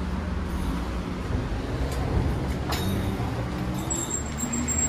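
Street traffic: a large vehicle's engine running with a low steady hum. A single sharp click comes about halfway through, and a thin high whine enters near the end.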